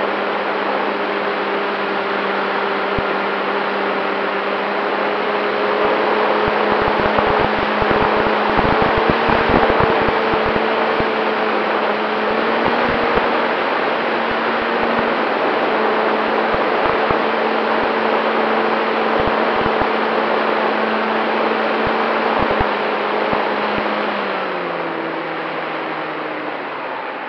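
Radio-controlled model Cessna 188's motor and propeller running at a steady cruise pitch with heavy wind rush, heard from on board, and low wind thumps on the microphone through the middle. Near the end the pitch glides down and the sound eases as the throttle comes back.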